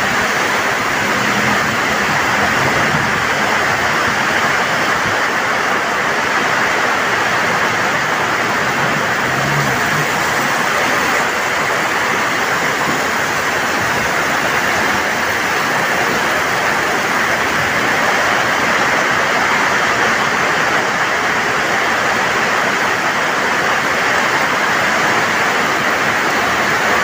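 Torrential downpour: heavy rain falling on the road and surrounding surfaces, a loud, steady hiss that holds unchanged throughout.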